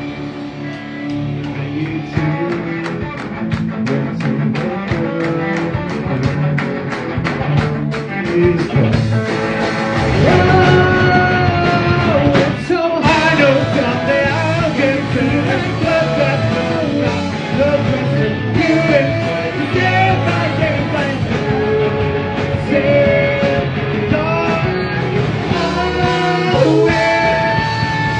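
Live rock band playing: drums, electric guitars and keyboard, with singing. The band gets louder about ten seconds in.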